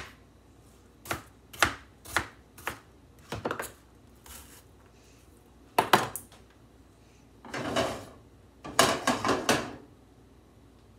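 Chef's knife chopping onion on a plastic cutting board, with sharp strikes about twice a second in the first few seconds. Scattered knocks and clatter follow later, loudest near the end.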